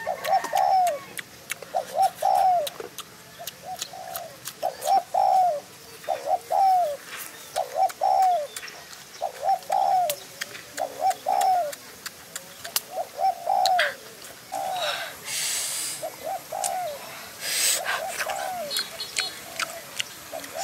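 A bird calling over and over: a pair of short, down-slurred notes about once a second. Faint clicks run underneath, and there are short bursts of rustling in the second half.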